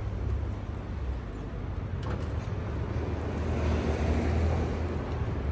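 City street traffic with a steady low rumble; a passing vehicle swells louder about four seconds in and then fades.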